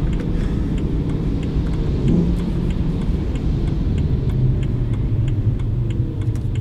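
In-cabin sound of a BMW E92 M3's S65 4.0-litre V8 running at low revs as the car rolls along a wet road, with tyre hiss. A light, regular ticking comes about two to three times a second.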